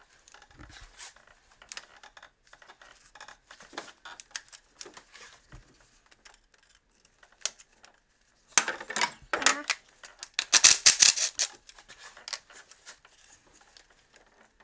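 Hand tools and plastic connectors and clips being worked on an engine: scattered light clicks and knocks, with a louder run of fast clicks about nine to eleven seconds in.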